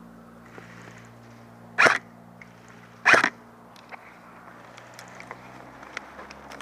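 Airsoft gun firing: two loud, short, sharp shots about a second and a half apart, the second a quick double, with faint ticks and rustling after them.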